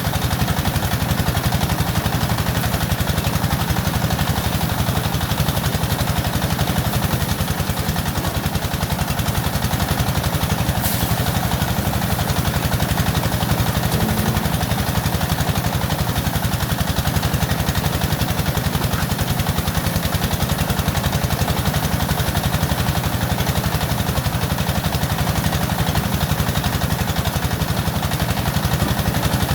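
An engine running steadily at a constant speed, with fast, even firing pulses and a strong low hum.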